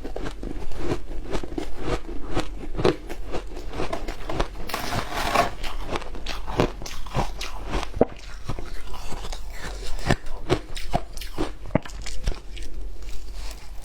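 Frozen matcha ice being bitten and crunched between the teeth: a rapid, irregular run of sharp cracks and crunches, with a denser crunch about five seconds in.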